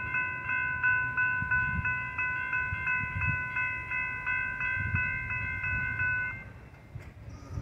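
Railroad crossing warning bell ringing in rapid, even strokes, then cutting off about six seconds in, while the crossing is malfunctioning.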